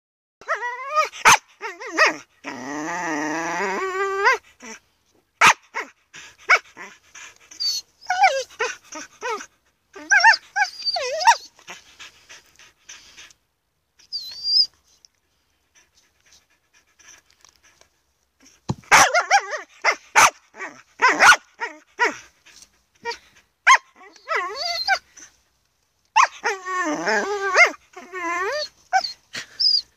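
A dog barking, whining and howling in bursts, with one long wavering howl a couple of seconds in and a quiet stretch in the middle; sharp clicks fall between the bursts.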